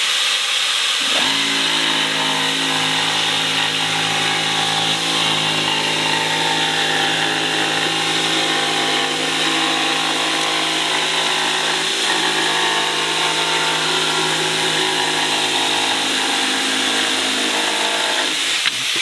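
Ridgid Octane 18V brushless cordless jigsaw sawing through 7/16-inch OSB, running steadily from about a second in until near the end. Under it is the constant rush of a shop vacuum hooked to the saw in blower mode, blowing sawdust off the cut line.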